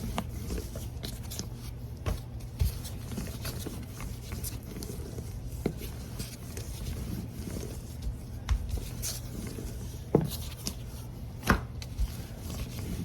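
Rolling pin working dhal puri dough on a board: scattered light knocks and taps, the loudest two near the end, over a steady low hum.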